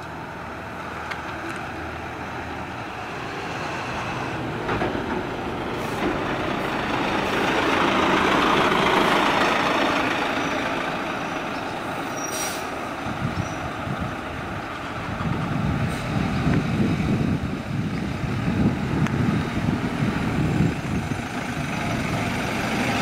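City bus engine running as the bus pulls onto the road and drives away, swelling and then fading. There is a brief high-pitched hiss about halfway through. Near the end comes the rougher, pulsing rumble of another vehicle's engine close by.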